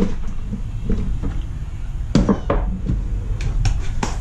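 Knocks and a short clatter from the tool cabinet being handled, one knock at the start and a cluster about two seconds in, over a steady low rumble.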